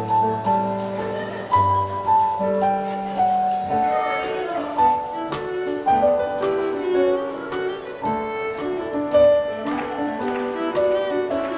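Live contra dance band playing a dance tune: fiddle melody over piano chords and bass notes, with a steady beat.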